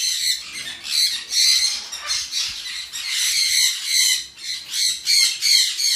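Many caged parrots squawking and screeching over one another, a continuous din of shrill calls.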